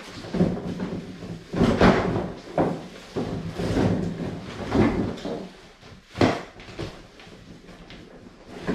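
Plastic wrap crinkling and a large cardboard treadmill box scraping and rustling as the box is unwrapped and its cardboard cover lifted off, with a sharper bump about six seconds in.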